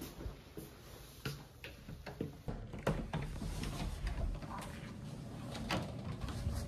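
Handling noise with scattered clicks and knocks, and a low rubbing starting about two and a half seconds in as the phone is pressed against a fleece jacket.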